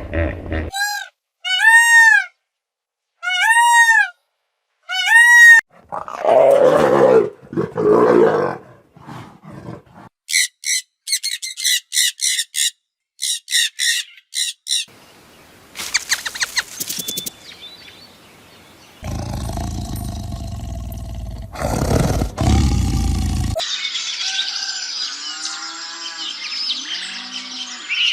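A series of different animal calls one after another: four arching pitched calls, then a lower rough call, then a rapid run of high calls, then a loud noisy stretch and a hissy stretch with faint calls near the end.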